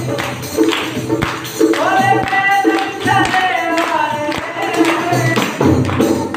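Male voices singing a song over a hand-played dholak barrel drum and a frame drum beating a steady rhythm.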